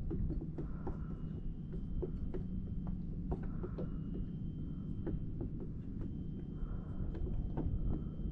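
Kayak being paddled across calm water: soft swishes of the paddle blades in a steady rhythm about once a second, with small drips and clicks over a low steady rumble.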